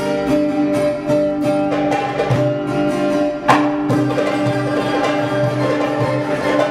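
Live traditional-style music from an ensemble of string instruments and percussion: a held drone-like tone under plucked or struck notes and a steady beat of low drum hits, with one sharp loud stroke about halfway through.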